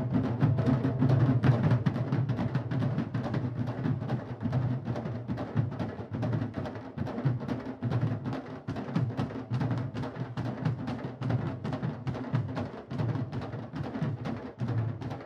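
Candombe drum ensemble of chico, repique and piano drums playing a continuous candombe rhythm: dense, fast stick and hand strokes over deep, booming low drum tones.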